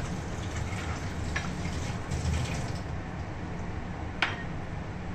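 Water running from a kitchen tap onto hands and a stainless steel sink, thinning out about three seconds in, over a steady low hum. A single sharp click near the end.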